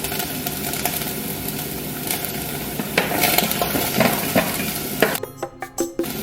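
Food sizzling in hot oil in a frying pan while a utensil stirs it, with scattered clicks and scrapes against the pan. The sizzle drops out for about a second near the end.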